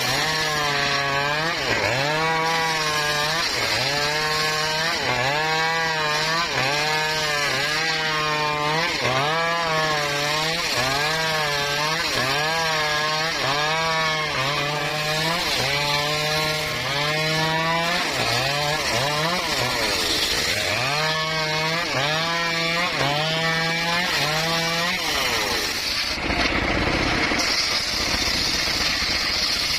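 Circular saw cutting through wood in quick succession: the motor's pitch drops as the blade bites into each piece and recovers between cuts, about once a second. Near the end the cutting stops and a steadier, rougher motor noise follows.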